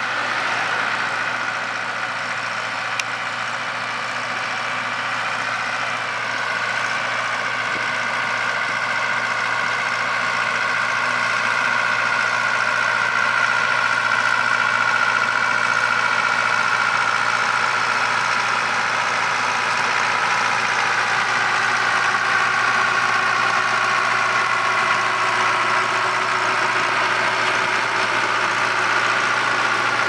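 Fendt tractor's diesel engine running steadily while pulling a trailed potato harvester, mixed with the harvester's working machinery and a steady whine. The sound grows gradually louder over the first dozen seconds, then holds.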